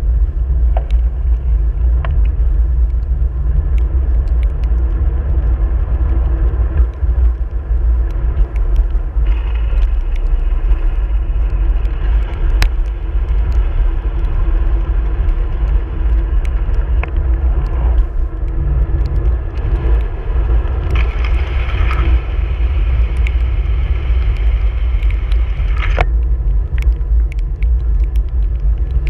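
Steady, loud rumble of wind and road noise on a camera moving along a rain-wet road, with a hiss that swells and eases and scattered sharp ticks.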